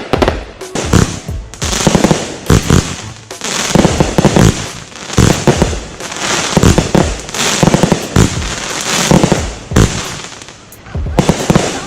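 Fireworks going off in quick succession: many loud bangs close together, with a hiss between them.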